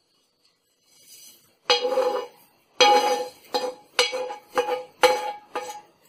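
A metal spoon knocking and scraping against a nonstick pan about seven times, each knock ringing briefly, as roasted cumin and sesame seeds are knocked out of it.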